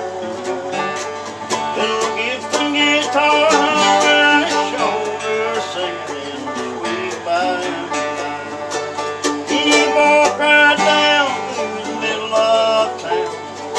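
Acoustic bluegrass string band playing a tune, with banjo and acoustic guitar picking together.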